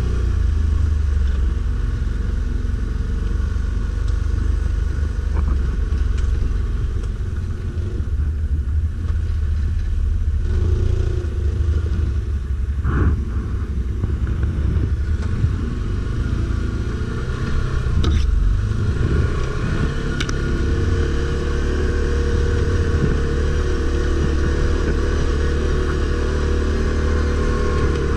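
Stels Guepard 850 ATV engine running under way off-road, its revs rising and falling with the throttle, then holding steadier in the second half. A brief sharp knock about thirteen seconds in.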